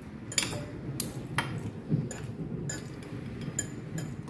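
A metal spoon and fork scraping and clinking against a ceramic bowl while mixing rice: a series of sharp clinks, about two a second, the loudest about half a second in.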